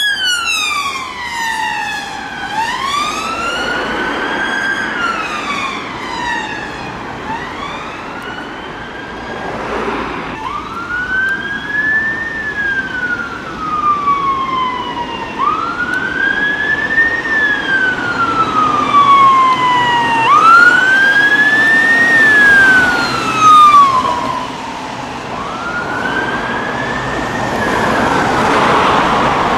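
Emergency vehicle siren on its slow wail, the pitch rising and falling about every five seconds, loudest a little past the middle, with vehicle and road noise underneath.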